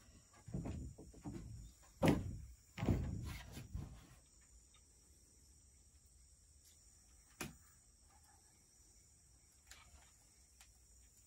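Wooden hut door being shut, with bare feet and a body on a plank floor: a few thumps and knocks in the first four seconds, the sharpest about two seconds in, then quiet with a single click about seven seconds in.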